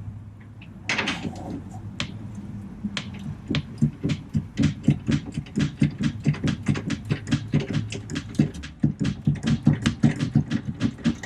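Quarter-inch drive ratchet clicking quickly and steadily, about four to five clicks a second, as it backs out a strut top-mount bolt; a single knock about a second in.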